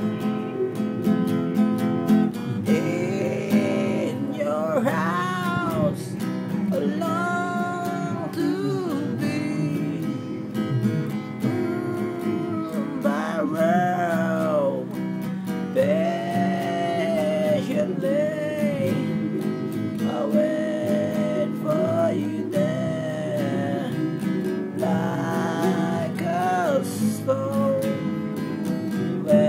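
A man singing while strumming an acoustic guitar, his voice carrying a wavering melody over steady chords.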